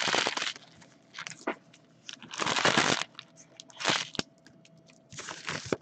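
Foil trading-card pack wrappers crinkling and tearing as they are ripped open by hand, in about four short bursts.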